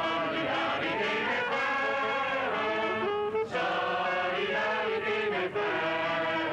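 A crowd of men and women singing a song together, holding long notes, with brief pauses for breath about three and a half and five and a half seconds in.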